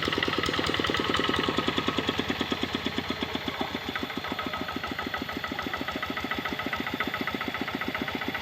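Kubota RD65 single-cylinder diesel engine of a hand tractor running under load while harrowing, with a steady fast knocking beat of about nine firing pulses a second.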